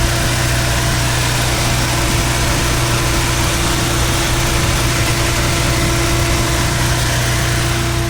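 VW Gol 1.0 16-valve turbo four-cylinder engine idling steadily, a constant hum with an even hiss over it.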